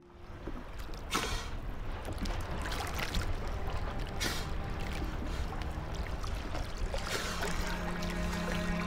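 Sea water sloshing and rushing, fading up from silence, with short bursts of splashing or bubbling about one and four seconds in. A low, steady musical drone comes in about seven seconds in.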